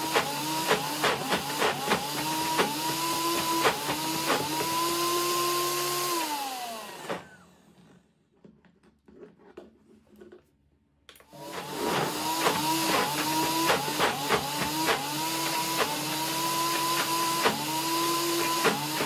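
Nutribullet Blender Combo's motor blending a thick frozen-fruit mix with the tamper pushed down into the jar. Its whine keeps dropping and climbing back as the load on the blades changes, with frequent knocks. About six seconds in the motor winds down and stops, stays silent for about four seconds, then starts again and runs on with the same dipping whine.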